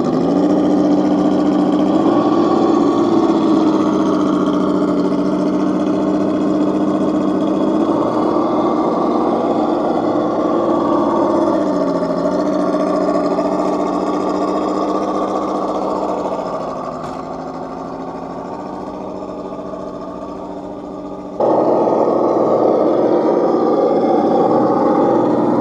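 Electric motor and drivetrain gears of a radio-controlled scale crawler truck whining steadily as it crawls over rocks, the pitch rising and falling with the throttle. It turns quieter for a few seconds past the middle, then comes back loud suddenly about 21 seconds in.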